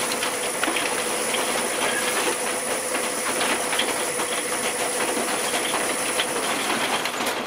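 Wood lathe running with a paper towel pressed against the inside of the spinning wooden bowl, buffing friction-heated wax to a shine: a steady hiss over the lathe motor's faint whine. The whine stops near the end as the lathe is switched off.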